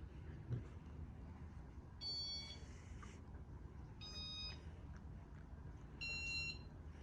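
Electronic beeps from a Casablanca ceiling fan's control: three short pitched tones about two seconds apart, each at a different pitch, as the fan steps through its demo mode. Under them is a steady low hum from the fan motor.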